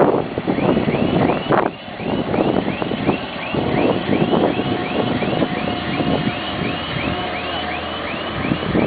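Skid-steer loader engine running under load as it pushes a grader attachment through loose dirt, its noise rising and falling as it works. Over it, a short high chirp repeats about three times a second.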